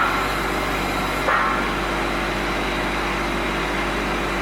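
John Deere 17D mini excavator's diesel engine running steadily, with one short, brighter sound about a second in.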